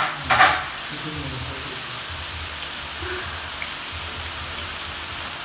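Cabbage, broccoli and bell peppers sizzling unstirred in a hot wok: a steady frying hiss. Two short, loud noises come in quick succession right at the start.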